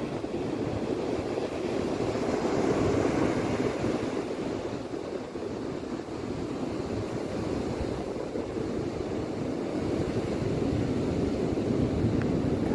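Surf breaking on a sandy beach: a continuous rush of waves that swells, eases around the middle, and builds again near the end, with wind buffeting the microphone.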